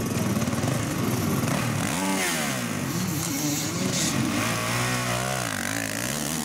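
Enduro motorcycle engine revving up and down several times, then pulling away with dirt thrown from the rear tyre near the end.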